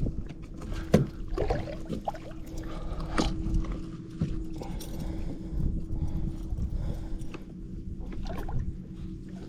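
Scattered knocks, clicks and rattles on a kayak as a hooked bluefish is handled and a spoon lure is worked out of its mouth, over a steady low rumble.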